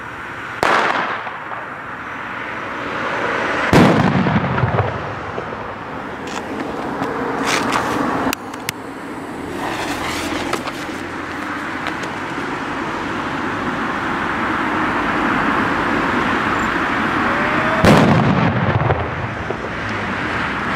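Firecrackers going off: a sharp bang about a second in and a heavier one at about four seconds, a few small pops, then a steady hiss that builds before the loudest blast near the end. Each big bang trails off into a rumbling echo.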